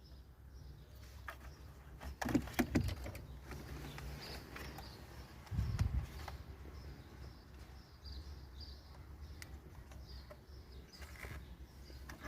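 Faint bird chirps over a low, steady rumble, with a few knocks about two to three seconds in and a dull thump near the middle.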